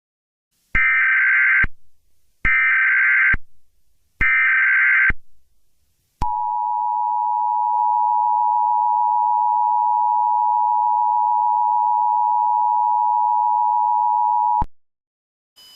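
Emergency Alert System signal: three short bursts of the SAME data header, then the steady two-tone attention signal held for about eight seconds. It announces a broadcast emergency alert, here a tornado emergency.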